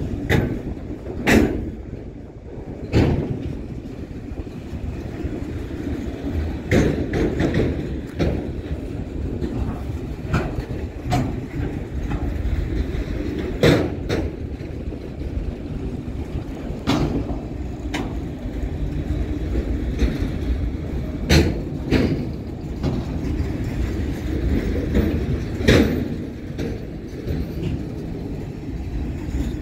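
Freight train of enclosed autorack cars rolling past close by: a steady rumble of steel wheels on rail, broken by sharp clanks every second or two.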